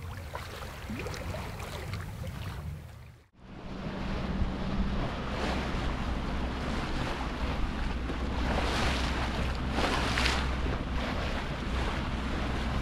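Wind buffeting the microphone over the rush of water and waves around a sailboat under way. There is a brief break in the sound about three seconds in.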